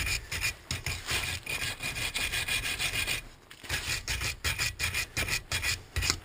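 Wire brush scrubbing a spark plug, rapid back-and-forth scraping strokes about four or five a second with a short pause about three seconds in, clearing burnt-off carbon from the plug's tip and sides.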